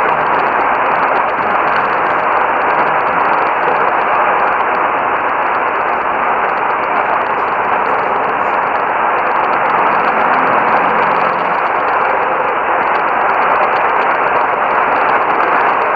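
Steady rush of radio static from a receiver on a weak station, with nothing above the upper midrange.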